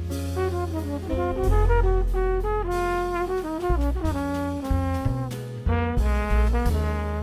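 A jazz quartet playing: a trumpet carries a melodic line of changing notes over piano, bass and drums with cymbals.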